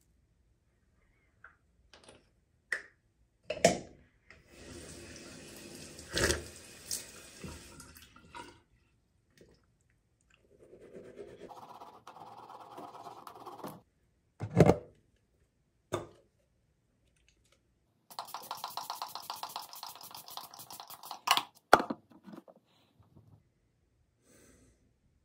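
Teeth being brushed with a manual toothbrush at a bathroom sink, with a few stretches of running tap water and scrubbing, the last with a fast rhythmic texture, separated by sharp clicks and knocks.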